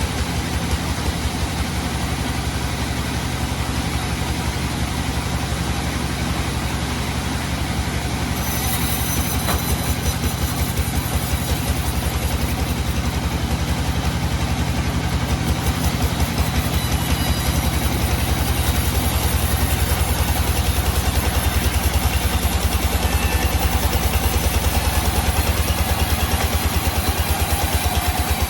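Sawmill engine running at a steady speed with a fast, even low throb; a faint high hiss joins about eight seconds in.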